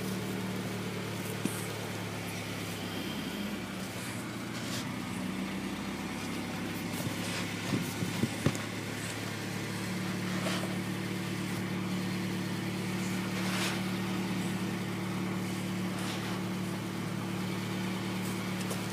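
Acura Integra's engine idling steadily through a Monza Pacesetter exhaust with a DC Sports tip, a low, even drone with no revving. A few short knocks about eight seconds in.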